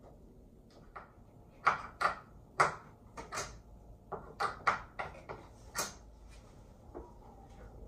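A series of about a dozen sharp knocks and clacks of hard objects, at irregular intervals, the loudest about two seconds in.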